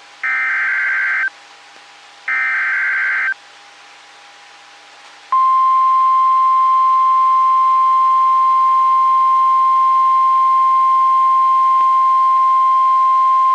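NOAA Weather Radio Emergency Alert System signal. Two buzzy, screeching bursts of SAME digital header data about a second each, the second about two seconds after the first. Then, about five seconds in, the steady single-pitch 1050 Hz warning alarm tone starts and holds, signalling that a warning message is about to be read.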